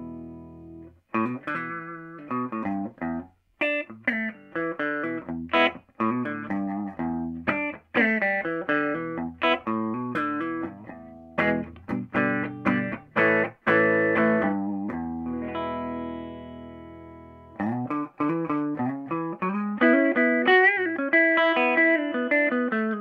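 Hollow-body electric guitar played clean through a Univox U-1226 tube guitar amp under test, a melodic run of picked single notes and chords. Some chords are left ringing, one for about two seconds after the middle, and near the end the notes waver in pitch.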